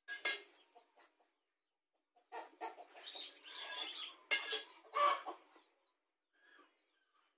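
Chickens clucking in choppy bursts from about two to five seconds in, after a short sharp clatter at the very start.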